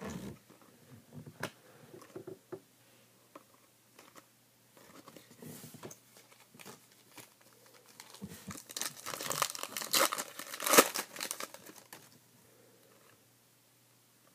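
Foil wrapper of a trading-card pack being torn open and crinkled, loudest for a few seconds past the middle. Before that come a few light clicks and taps of stiff cards being handled.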